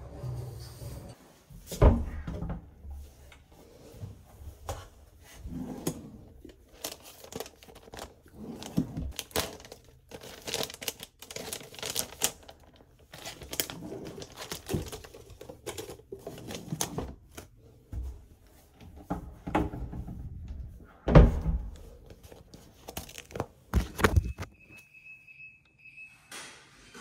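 Household handling sounds: footsteps on a spiral staircase, then the crinkling and rustling of a disposable face mask and its wrapping, with scattered knocks and thuds, the loudest about two seconds in and again about three quarters of the way through. A steady electronic beep sounds near the end.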